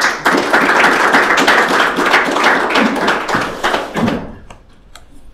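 Audience applauding, a dense patter of many hands clapping that fades out after about four seconds.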